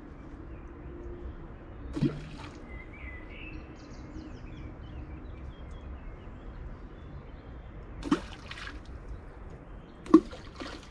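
Water running with a steady hiss, and three loud plops of drops falling into water, each dropping quickly in pitch: one about two seconds in and two near the end. Faint bird chirps are in the background.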